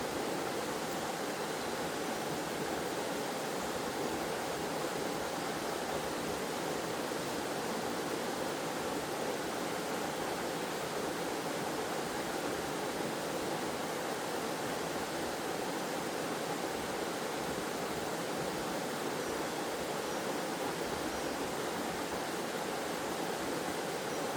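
Waterfall and stream water rushing steadily, an even wash of noise with no breaks or changes.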